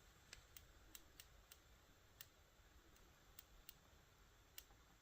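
Near silence with about nine faint, sharp, irregular clicks from small parts of a flip-clock mechanism being handled.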